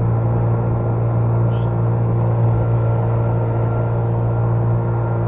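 Outboard motor on an inflatable boat running steadily under way, a constant low hum that holds the same pitch throughout.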